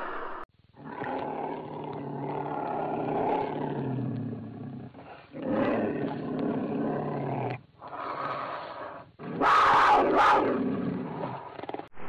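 Cougar calls processed into a dark horror sound effect: a run of low, drawn-out calls broken by short gaps, then a louder, harsher burst with two peaks about three-quarters through.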